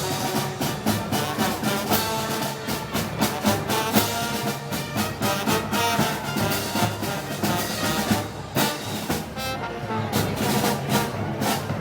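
Brass band with drums playing festival march music, the brass held over a steady beat of drum and cymbal strokes.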